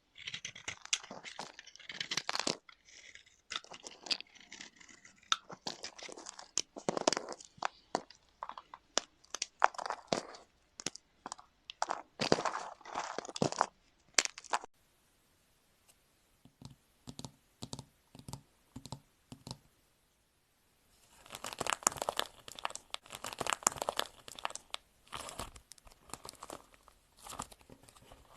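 Crisp crunching and crackling from a crunchy material being pressed, squeezed or cut, in quick clusters of snaps. Partway through the crackling stops for several seconds, leaving only a few soft low thuds, then returns dense and steady near the end.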